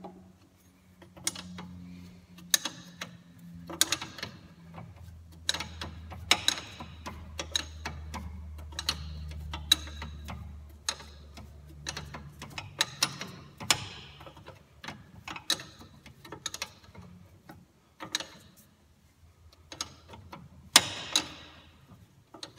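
A wrench clicking and clinking on metal at irregular intervals as the steel brake line fitting is loosened from the flexible brake hose at its bracket. A steady low hum runs underneath and stops about halfway through.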